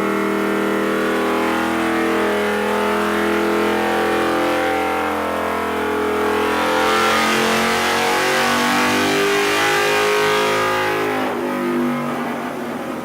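Honda CX500 V-twin engine with a custom 2-1-2 exhaust on a dyno, revving steadily upward through a full-throttle pull. Near the end the throttle is shut and the revs fall away.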